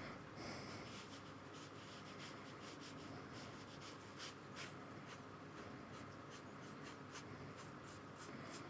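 Paintbrush dabbing and stroking paint onto watercolour paper: faint, irregular scratchy strokes, several a second, over a low steady room hum.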